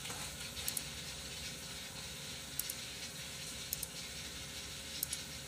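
Faint steady hiss of room noise, with a few light clicks.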